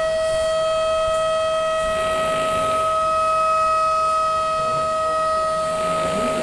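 A steady, unbroken tone held at one pitch with even overtones, with faint low sounds beneath it near the end.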